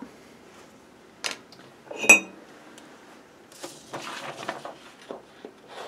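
A light click, then a ringing metallic clink of scissors being picked up from the table. Then construction paper rustles and scrapes as it is handled for cutting.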